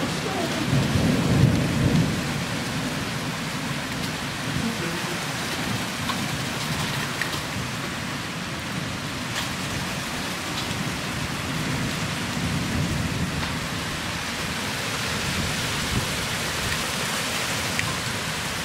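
A rain and small-hail shower hissing steadily on the street and the parked cars. Low rumbles of thunder come through it, loudest in the first couple of seconds and again about twelve seconds in.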